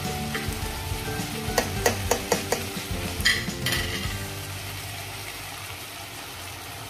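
Chicken pieces sizzling in a frying pan, with a quick run of about five sharp clicks of a spoon against the pan about two seconds in and a brief scrape a little after three seconds.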